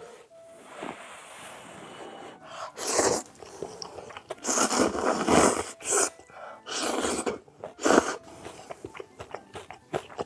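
Close-miked slurping of spicy Korean ramen noodles, several loud wet slurps, the longest lasting over a second, with chewing between them.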